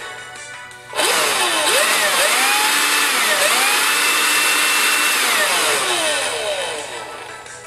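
12-volt car vacuum cleaner motor, used as a blower, switched on by touching its bare wires to the power contacts about a second in: a loud whine over rushing air climbs, dips twice, holds steady, then winds down over the last couple of seconds as the power is cut.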